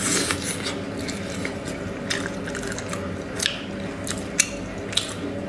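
Close-up mouth sounds of eating a braised pig's trotter: biting, tearing and chewing the soft braised skin and meat, with wet smacking and several sharp clicks, the loudest a little past the middle.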